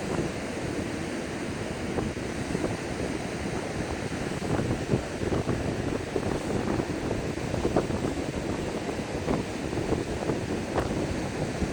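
Strong Force 6 wind buffeting the microphone over surf breaking on the beach: a steady rushing noise with small gusty flutters.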